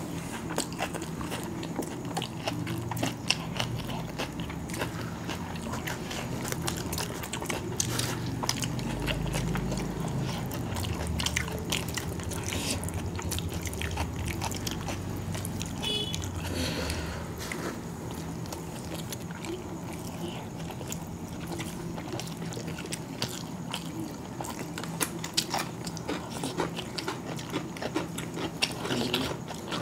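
Two people eating chicken biryani by hand, close to the microphone: chewing and biting with many small irregular clicks, over a steady low hum.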